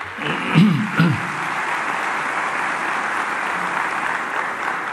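Hall audience applauding steadily, with a brief voice heard over the clapping in the first second.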